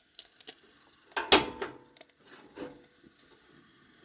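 A few light clicks and clattering knocks from handling camp cooking gear, the loudest sharp knock about a second and a half in.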